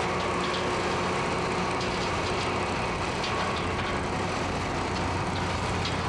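John Deere 892D LC tracked excavator's diesel engine running steadily as the boom and bucket are worked, with a few faint ticks over the steady hum.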